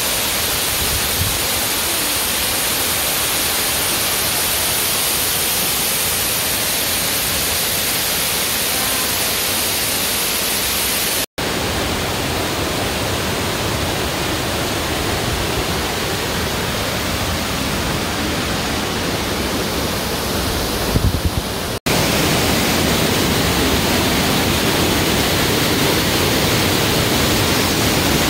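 Waterfall and creek water rushing as a loud, steady hiss of falling and tumbling water. It drops out briefly twice at cuts between falls, with a few short low bumps just before the second cut. In the last part it is whitewater rushing through a narrow rock channel.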